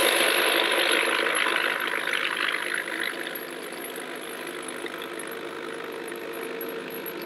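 Vibratory case tumbler running with crushed walnut media and brass cartridge cases. A loud rattle of the brass dies down over the first three seconds as the cases sink under the media, leaving a steady hum.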